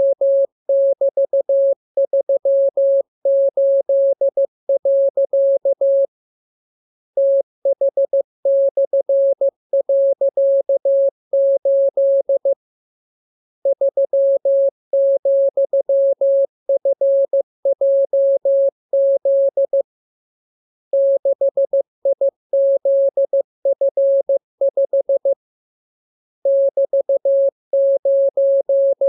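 Morse code (CW) practice tone: a single steady tone keyed in rapid dots and dashes, sent as groups of characters in a training radiogram, with pauses of about a second between the blocks of keying.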